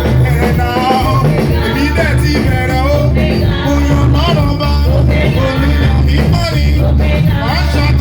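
Praise music with singing over a steady, pulsing bass and drum beat.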